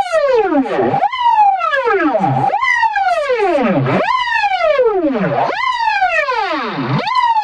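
Electronic siren-like tone that slides steadily down in pitch over about a second and a half, then jumps back up and falls again, about five times over.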